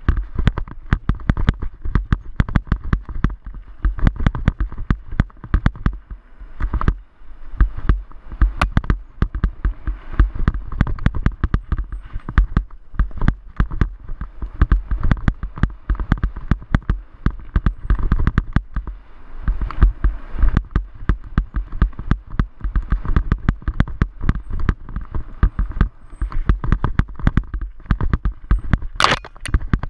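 Rapid, irregular knocks and rattles with heavy wind buffeting on a helmet-mounted action camera, as a bike rides over a bumpy dirt trail. A sharper crack comes near the end.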